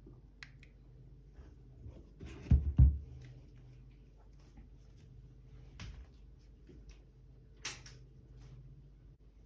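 Handling sounds: scattered light clicks and rustles, with two heavy low thumps in quick succession about two and a half seconds in.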